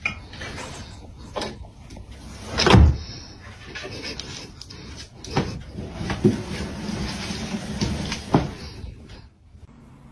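A few knocks and thumps over background noise, the loudest about three seconds in.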